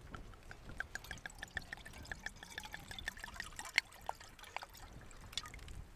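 Wine being poured from a bottle, glugging in a quick even run that slows and thins out after about three seconds.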